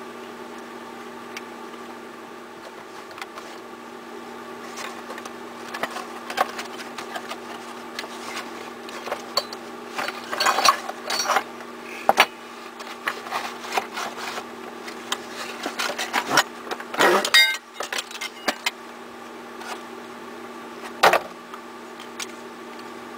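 Irregular clicks, taps and metallic rattles of a hand tool and loose hardware as the wiring at an old electrical box is taken apart, over a steady low hum. A longer scrape comes about two-thirds of the way through, then a sharp knock near the end.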